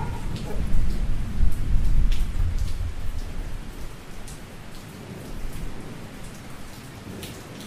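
Rain falling, with scattered drop ticks, and a low rumble of thunder in the first few seconds; the rain then fades out gradually.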